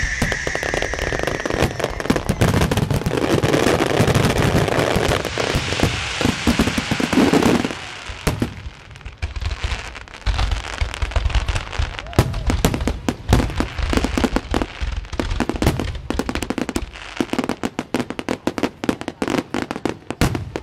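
Beehive-rocket and fireworks barrage: a dense, rapid crackle of bangs and pops for about the first seven seconds, with a whistle fading out in the first second or two, then thinning to scattered bursts of cracks.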